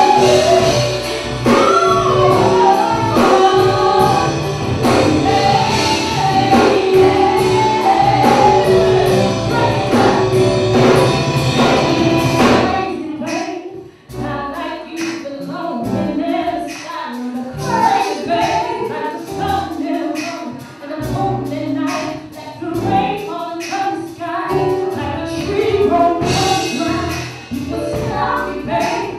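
Live band music with a woman singing lead over keyboards, guitar, bass and drums. About thirteen seconds in, the sound cuts to a sparser passage with little bass, where the lead and female backing singers carry the song.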